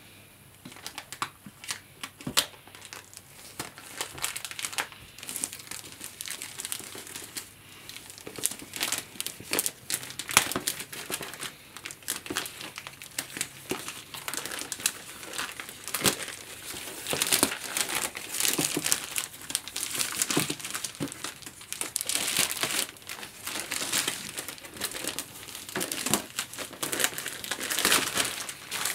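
Clear plastic shrink-wrap being torn open and pulled off a cardboard box, crinkling and crackling irregularly. It grows busier and louder from about eight seconds in.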